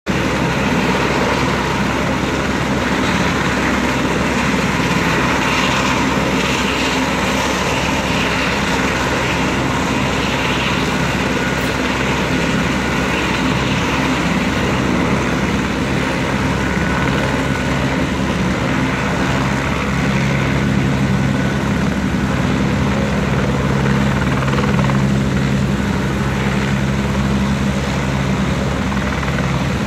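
Medical helicopter's engine and rotor running steadily before liftoff. The low rotor tones grow stronger from about halfway through as it powers up.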